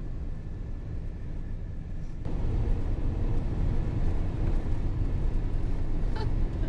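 Road and engine noise of a vehicle driving on a highway, heard from inside the cabin: a steady low rumble that gets suddenly louder about two seconds in.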